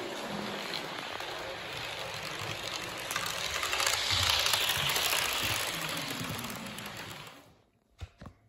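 Rushing noise of a passing train, swelling to its loudest about four seconds in and dying away about seven seconds in, followed by a few short knocks near the end.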